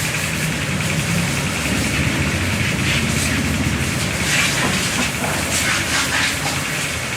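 A motor running steadily under an even hiss, with a few short scratchy strokes from about three seconds in to near the end.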